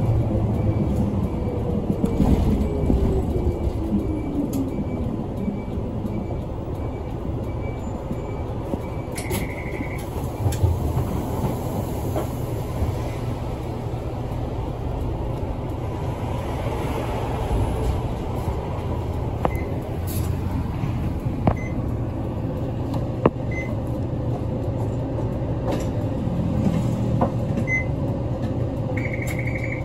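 City bus running, heard from inside the cabin: a steady low engine and road rumble, with a whine that falls in pitch over the first few seconds. Faint regular ticking early on, and two short high beeps, one about nine seconds in and one at the end.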